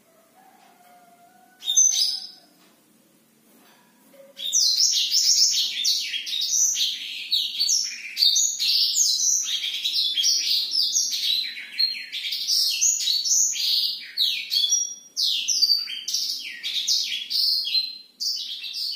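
Caged blackthroat (black-throated canary) singing: one short call about two seconds in, then from about four seconds a long, unbroken run of rapid high notes, its full rolling song.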